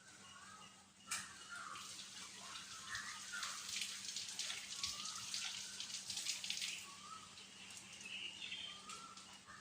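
A parrot giving short, soft chirps and chatter. There is a sharp click about a second in, and a dense crackling noise runs through the middle few seconds.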